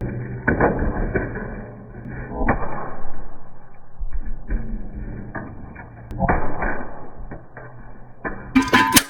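Ceiling fan being wrecked: rough whooshing noise swelling and fading several times, with knocks and clatters. Near the end the sound turns suddenly brighter and clattery.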